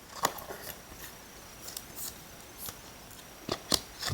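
Light clicks and rustles of a trading card and a rigid plastic top loader being handled, a few scattered taps with a close pair near the end.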